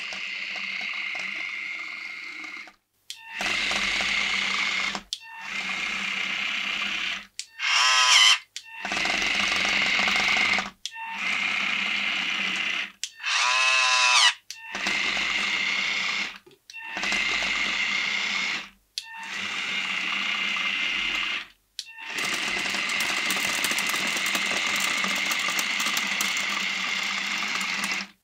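Small electric drive motors of a remote-controlled brick-built half-track model whining steadily as it drives, in a string of short runs broken by brief silent gaps. Twice the pitch swoops sharply up and down.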